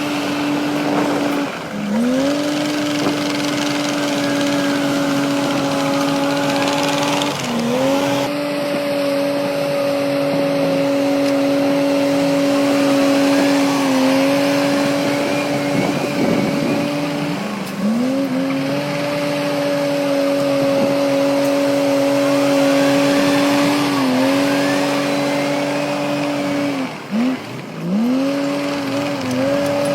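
Heavy construction machine's diesel engine running at high revs, its pitch dropping briefly and recovering every few seconds as it takes load.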